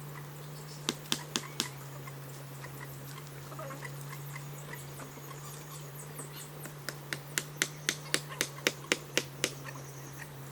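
Hand tool knocking on wood. There are four quick taps about a second in, then a fast, even run of about a dozen strikes, roughly four a second, near the end, all over a steady low hum.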